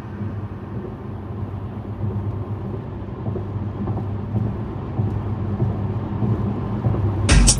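Low, steady rumble inside a car cabin, slowly growing louder; near the end loud electronic music with a hard beat comes in over the car's sound system.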